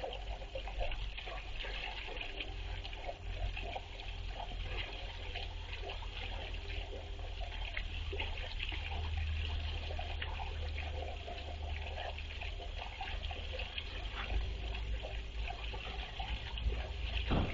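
Water trickling steadily into a small pond, with a low rumble underneath.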